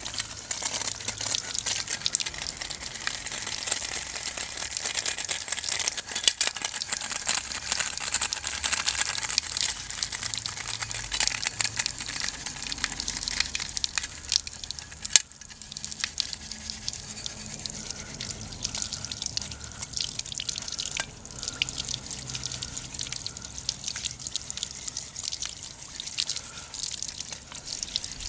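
A pot of oden broth simmering and bubbling over a wood fire, with a constant patter of small sharp clicks.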